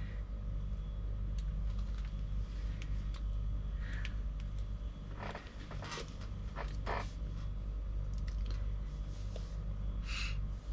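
Steady low hum of room tone, with a few faint clicks and rustles from a phone in a plastic case being handled and turned over.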